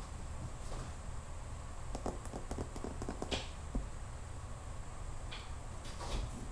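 Siberian kittens playing on a hard floor around a wire pen: a quick run of light taps and clicks about two seconds in, and a few more near the end, over a steady low hum.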